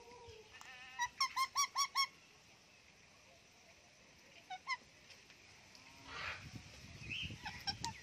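Ringneck parakeet squawking: a quick run of six loud, harsh calls about a second in, two short calls midway, and a few more short calls near the end. A brief noisy rush comes about six seconds in.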